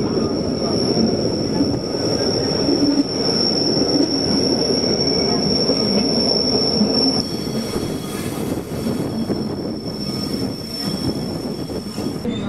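Rhaetian Railway Bernina line train running, heard from a carriage window, with a steady rumble of the wheels on the track. A single steady high wheel squeal sounds as the train takes a curve, weakening about seven seconds in and stopping near the end.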